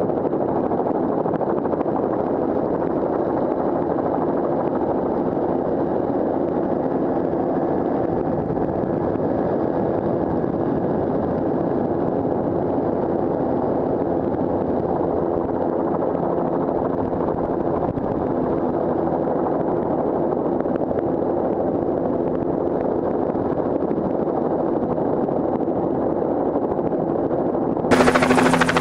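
Bell 206 JetRanger helicopter in flight, heard from on board as a steady, muffled drone of rotor and turbine. Near the end the sound changes to the helicopter heard from the ground overhead, louder and brighter.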